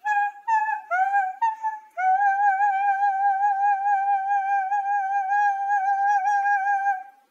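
A woman singing high notes: four short notes, then one long note held with vibrato for about five seconds.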